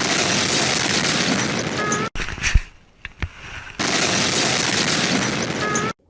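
Loud, distorted explosion sound effect lasting about two seconds and cut off abruptly, then a quieter stretch with a low thump, then the same blast again.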